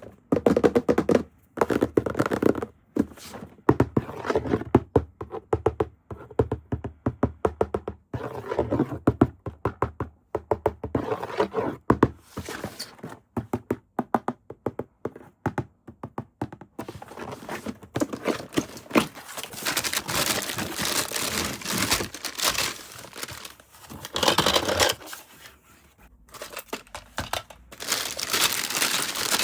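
Toy packaging being opened by hand: cardboard and plastic handled with many quick knocks, taps and scrapes, then, in the last third, longer stretches of plastic wrapping crinkling and tearing.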